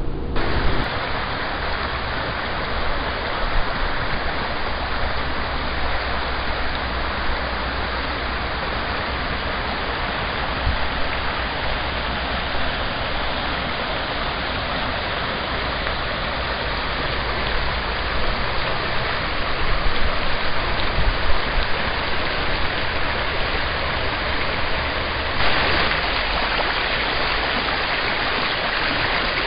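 Brook rushing over rocks: a steady, even rush of running water. It turns brighter and a little louder about four seconds before the end.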